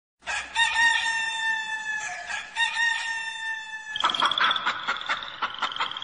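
Rooster crowing twice, each crow a long call of nearly two seconds. About four seconds in, the crowing gives way to a steady high trill with quick repeated croaking calls.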